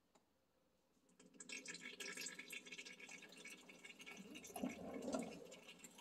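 Used engine oil draining from the Kubota B2301's two oil-pan drain holes into a drain pan: a faint, steady trickle that starts about a second in.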